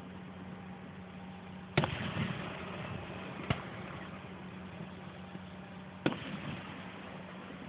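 Distant aerial fireworks booming: two loud bangs about two and six seconds in and a fainter one between, each trailing a short echo, over a steady low hum.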